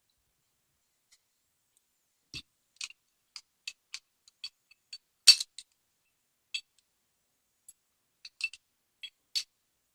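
Light metallic clicks and clinks from a large Multilock C10 padlock and its parts being handled while it is taken apart. They come irregularly from a couple of seconds in, with one louder clink about halfway through.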